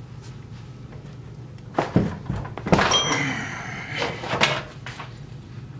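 Several metallic clunks and clanks in three groups, one of them ringing briefly, from steel tooling on a barrel vise being worked to break a rifle barrel loose from its action, over a steady low shop hum.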